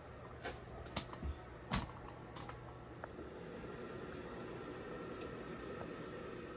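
A few light clicks and knocks, bunched in the first three seconds and fainter later, over a faint steady hum.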